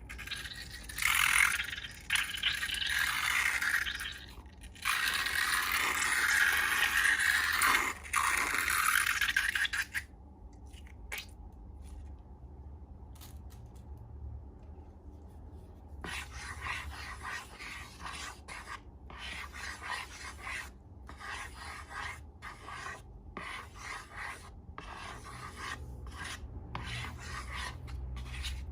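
Scraping and rubbing strokes: loud, long scrapes for the first ten seconds or so, a quieter spell, then a long run of short, even strokes.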